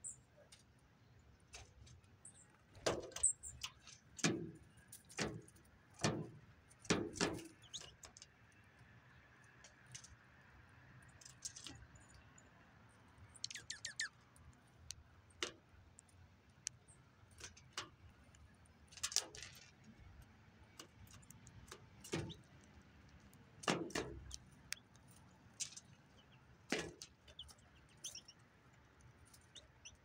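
Dark-eyed juncos pecking and shuffling in loose birdseed on a feeder tray close to the microphone: irregular taps and rattles of seed, with a louder clatter every few seconds.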